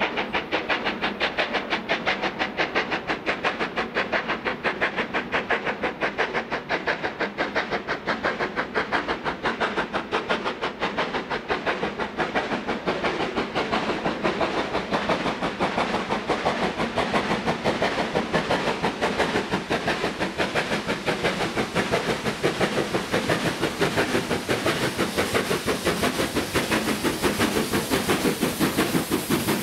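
Stanier Black 5 4-6-0 steam locomotive hauling a train, its two-cylinder exhaust beating in a fast, even rhythm. The steam hiss grows louder and brighter towards the end as the engine draws nearer.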